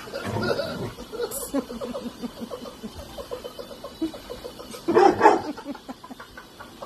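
Rottweiler making a run of low, rapid short woofs, then one louder bark about five seconds in.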